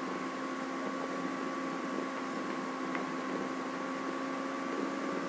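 Steady background hiss with a faint, even electrical hum; no other sound.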